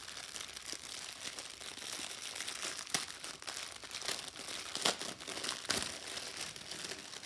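Clear plastic packaging bag crinkling as it is handled and opened, the small bags of diamond drills and tools inside shifting, with a few sharper crackles about three, five and six seconds in.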